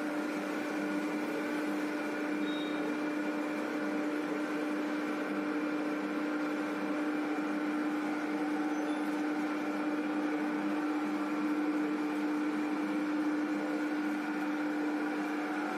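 Belt-driven rotary oil press (marachekku) running steadily as its turning pestle crushes groundnuts: a steady machine hum with one strong low tone.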